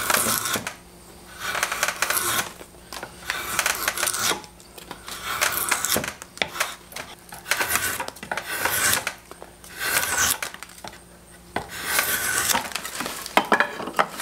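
Drawknife shaving a split blank of green red oak in a series of scraping strokes, one about every second and a half, roughing the blank down to a square section.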